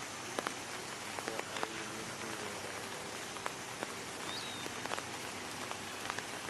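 Steady rain with scattered drip-like ticks, and a faint short bird chirp about four and a half seconds in.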